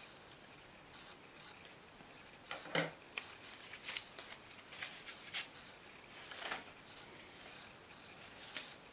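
Paper rustling and crinkling in short crisp bursts as a folded paper cut-out template is opened up and handled, with a sharp tap, the loudest sound, about three seconds in.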